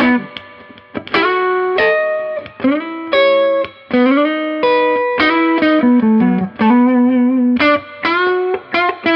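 Electric guitar played through a Fender Champ 12 amplifier on its clean channel: picked notes and short phrases with brief pauses, some notes held and bent.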